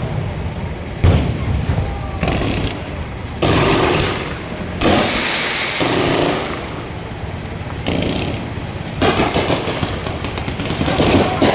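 Aerial fireworks going off: about six loud bursts a second or two apart, each dying away in an echoing rumble, with a crackling hiss after one of them midway.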